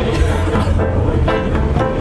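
Music: a large group of singing-club members singing a song together.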